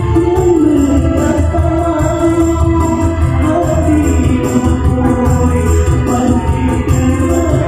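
Male vocalist singing a dangdut song into a microphone over electronic keyboard accompaniment with a steady beat.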